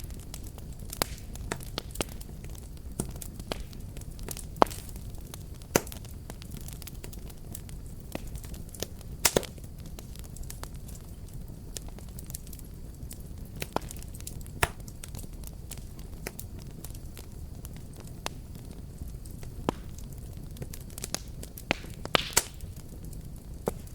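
Wood fire burning with a steady low rumble and irregular sharp crackles and pops, a few of them much louder than the rest.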